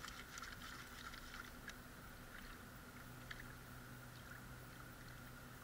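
Faint swishing and trickling of water in a plastic gold pan that is being dipped and swirled in a tub of water, with a few small drips and splashes. The swirling washes the light sand off the top of the gold-bearing dirt.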